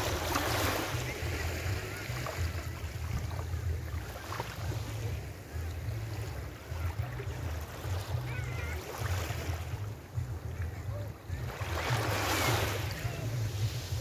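Small sea waves lapping and washing up a sandy shore, with one surge of wash right at the start and a bigger one about twelve seconds in, over a steady low rumble of wind on the microphone.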